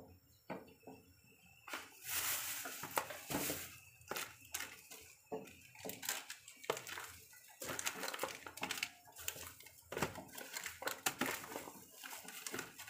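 Pork in soy-sauce broth simmering in a stainless steel pot, with irregular bubbling and popping that starts about two seconds in.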